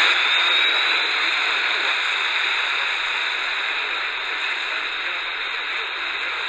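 Steady shortwave static hiss from the Eton Grundig Edition Mini portable radio's speaker during a band scan, with a faint rising whistle in the first second or so.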